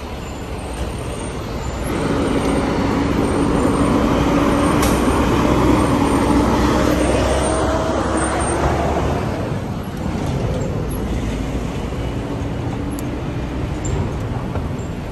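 City street traffic with a large box truck driving past close by: its engine and tyre noise swell about two seconds in, stay loud with a steady engine tone for several seconds, and fade away near the ten-second mark, leaving the general traffic hum.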